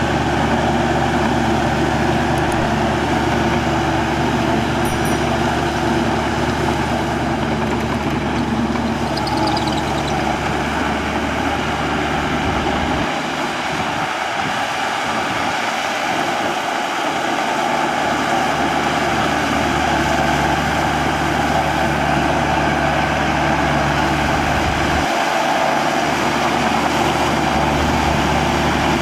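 Yanmar YM 348A tractor's diesel engine running steadily. Its deep low part drops away for a few seconds about halfway through, and again briefly near the end.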